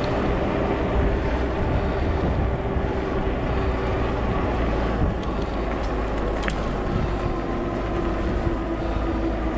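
Steady riding noise from a fat-tyre e-bike on a road: low rumble from the tyres and wind, with a thin steady whine from the electric motor.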